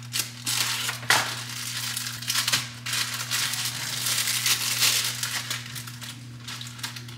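Plastic food wrapper crinkling and crackling as it is torn open and handled, with sharp clicks among the rustling and a low steady hum underneath.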